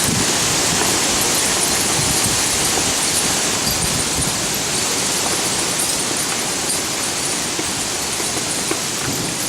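Steady rushing hiss of the storm outside, wind and falling rain, easing slightly near the end.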